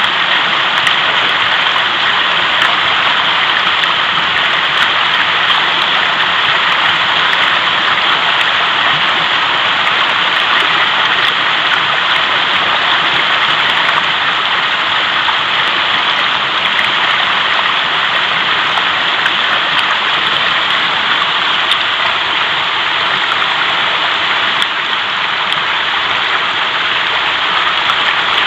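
Mountain river rushing steadily, a continuous loud roar of flowing water.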